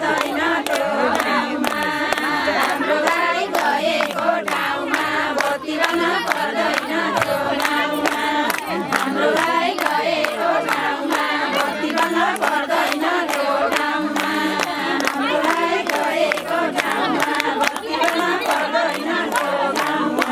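A group of women singing a ratyauli wedding folk song together, clapping their hands in a steady rhythm.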